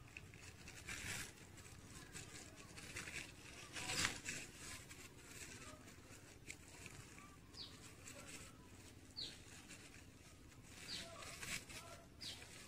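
Faint rustling and crinkling of a thin plastic sheet being handled and wrapped around a cutting, with the loudest crinkle about four seconds in. Four short high chirps come in the second half.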